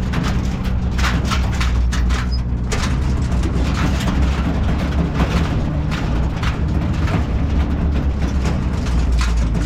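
An engine running steadily with a low hum, with frequent clicks and rattles over it.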